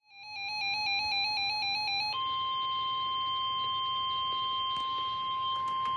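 A short run of electronic tones stepping back and forth in pitch. About two seconds in, the NOAA Weather Radio 1050 Hz warning alarm tone starts and holds as one steady, piercing tone, signalling that a warning broadcast follows. A faint radio hiss runs beneath.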